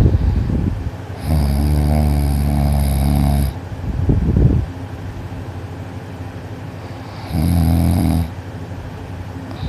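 A teenage boy snoring loudly while sleeping on his back with his mouth closed: a long low buzzing snore about a second in and a shorter one near the end, with a breathy exhale between them.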